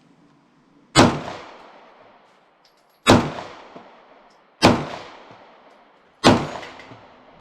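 Four single pistol shots from a Kel-Tec PMR-30 firing .22 WMR (22 Magnum) rimfire rounds, spaced about one and a half to two seconds apart. Each shot is sharp and loud and trails off over about a second.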